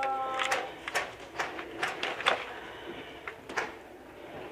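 Airsoft gunfire: a run of sharp cracks, about two a second for the first half, then one more later on.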